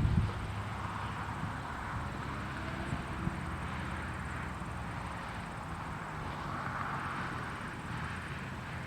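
Steady low engine hum with a broad rushing noise over it that swells about seven seconds in.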